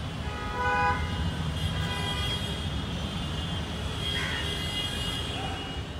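Busy city street traffic with a steady low rumble, and vehicle horns honking: one clear honk about half a second in, others fainter later.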